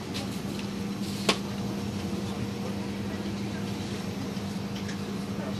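Steady low mechanical hum over a low rumble, broken once by a sharp click about a second in.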